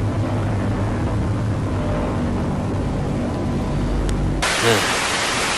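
Low, steady droning hum over a rumble, the ominous background of an emergency-alert scenario animation. About four seconds in it cuts suddenly to loud static hiss.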